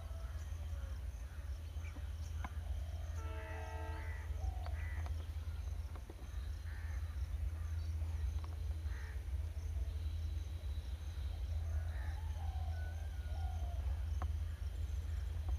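Birds calling in open country, with a harsh, crow-like cawing call about three seconds in and scattered short chirps throughout, over a steady low rumble.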